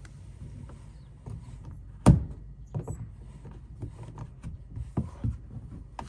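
A flathead screwdriver clicking and tapping against the fastener of a car's underbody panel as it is worked and turned, with one sharp knock about two seconds in and lighter clicks after. The fastener is not yet giving way.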